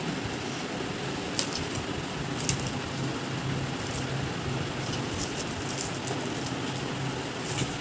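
Steady background noise with a faint low hum. Over it come a few sharp clicks and crinkles of plastic wrapping as a small wrapped speaker is handled and lifted out of its foam packing.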